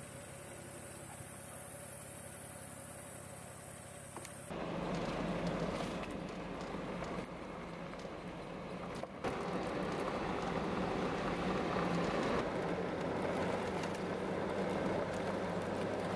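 For the first few seconds a steady high hiss. Then, after a sudden cut, the inside-the-cab noise of a Jeep driving on a gravel road: a steady engine and drivetrain hum under tyre rumble, with occasional knocks and rattles.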